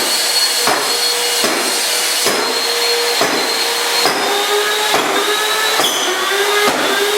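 Dirt Devil upright vacuum cleaner motor running with a steady whine, its housing broken open, with a sharp knock a little more than once a second, the pitch dipping slightly after some knocks.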